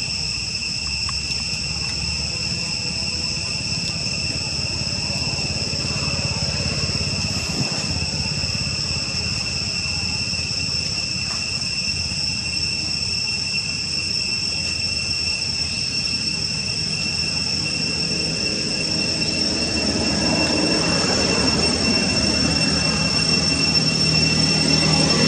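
Insects droning steadily in a high, unbroken whine, with a low rumble underneath that grows louder over the last several seconds.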